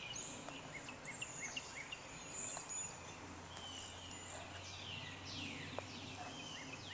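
Several birds chirping and calling in the background, mostly short high chirps with a few longer calls that slide down in pitch, over faint steady outdoor noise.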